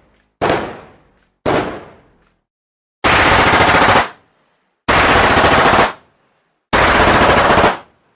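Gunfire sound effect: two single gunshots, each with a decaying echo tail, then three bursts of rapid automatic fire, about a second each.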